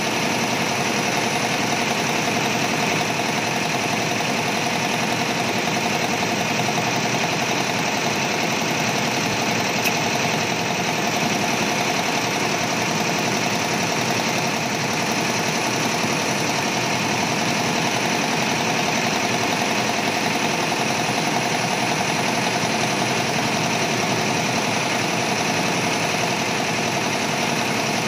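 Multi-needle computerized embroidery machine stitching steadily, a fast even run of needle strokes.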